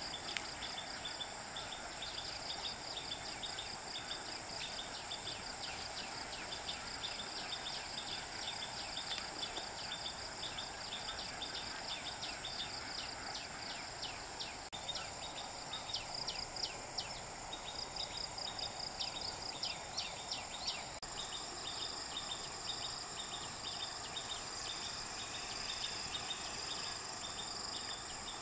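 Insects, several at once, calling: steady high-pitched trills with rows of quick chirps repeating over them, against an even background hiss.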